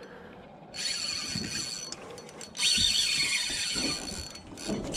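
Fishing reel's drag ratcheting in bursts as line is pulled off: one about a second in, a longer one from near the middle, and a short one near the end.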